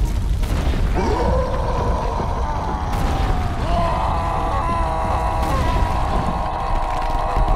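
Cartoon sound effect of the ground rumbling and breaking up as figures burst out of graves. About a second in, a sustained, slightly wavering tone joins the rumble and holds.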